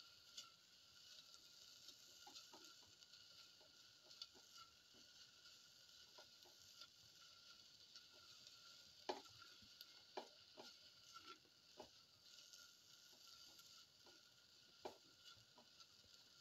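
Sliced shallots, garlic and ginger sizzling faintly in oil in a metal pan while a spatula stirs them, with scattered small scrapes and clicks and a few louder taps of the spatula against the pan in the second half.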